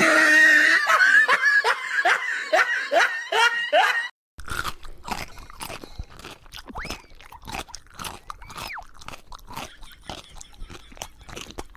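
A cat biting and chewing. First comes a loud, rhythmic run of short rising sounds about twice a second. After a brief gap about four seconds in, quieter irregular crunching clicks follow.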